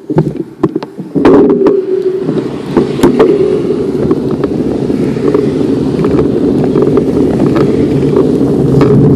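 A few sharp clicks and knocks as the handlebar-mounted camera is handled, then a steady rush of wind over the microphone and rolling noise from the moving bicycle, growing gradually louder as the bike picks up speed.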